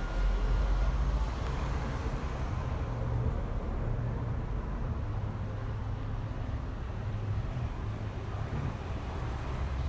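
Urban morning ambience: a steady low rumble of distant traffic with a faint hum of the city over it.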